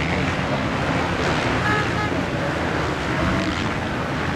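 Motocross venue ambience: the steady hubbub of a large outdoor crowd with an engine running underneath and snatches of voices.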